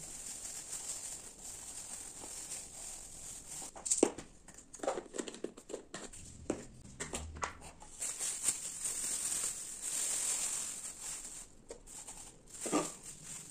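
Plastic bags crinkling and rustling as dried spices are poured from them into plastic jars, mixed with knocks and clicks of the jars and lids being handled. The sharpest knocks come about four seconds in and again near the end.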